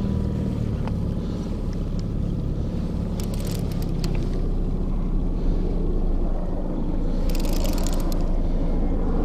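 Boat's outboard motor running steadily at trolling speed, a low hum mixed with a rushing wind-and-water noise. Two short crackling bursts come about three and seven seconds in.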